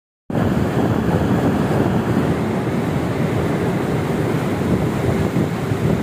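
Steady wind buffeting the microphone on a ship's open deck, over the rush of the sea below.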